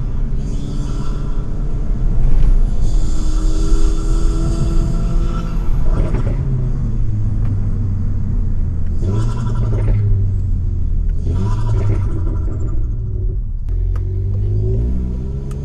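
Stage 3 tuned Volkswagen Golf GTI Mk7's turbocharged 2.0-litre four-cylinder with a decat, straight-piped exhaust, driven hard. The engine note climbs and drops several times as the car accelerates and lifts off between gears, with short bursts of rushing noise, and it is climbing again near the end.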